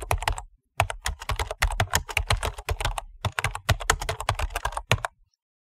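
Rapid computer keyboard typing, keys clicking in quick runs. It breaks off briefly twice and stops about five seconds in.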